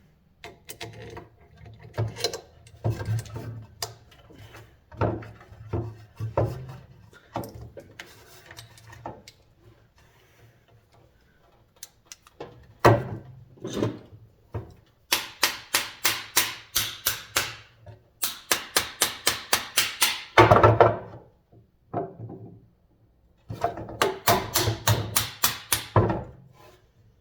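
Small metal hardware and hand tools clicking and knocking while screws and nuts are fitted into a box fan motor's bushing housing. In the second half come runs of rapid, even clicks, about five a second.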